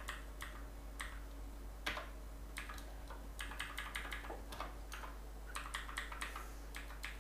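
Computer keyboard keys being tapped irregularly, with a few quick runs of keystrokes in the middle and later on, over a faint steady low hum.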